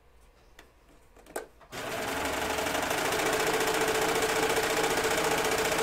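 Three-thread serger starting up about a second and a half in after a light click, then running steadily at speed as it stitches elastic onto a fabric waistband.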